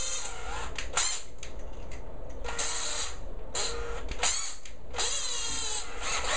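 Cordless drill fitted with a Phillips bit driving screws into the patio door frame. It runs in about six short bursts, and its whine drops in pitch as the motor slows under load.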